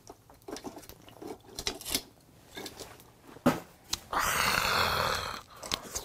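Soju being swallowed straight from the bottle in small gulps, then a loud breathy exhale of about a second and a half after the drink.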